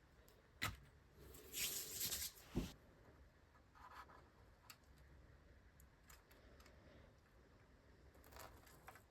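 Quiet hand-handling sounds of seedlings, pots and potting soil: a sharp tap, a brief rustling scrape, a knock, then a few faint ticks.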